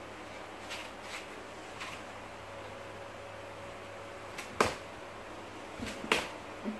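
Sharp clicks and light knocks as a person's weight comes onto and off a 30 mm virgin-paper honeycomb pallet board on a wooden floor. A few faint ticks come first, then one loud crack a little past the middle and a quick cluster of clicks near the end as the feet step off. A faint steady hum runs underneath.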